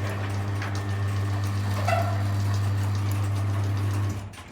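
Guardian roller garage door opener motor running with a steady low hum, cutting out about four seconds in as it reaches its set travel limit.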